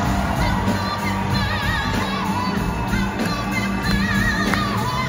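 Live blues-rock band playing, with a man and a woman singing held notes with vibrato at their microphones.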